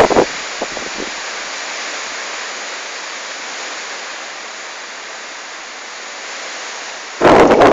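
Strong wind rushing steadily. Gusts buffet the microphone with a loud low rumble at the very start and again near the end.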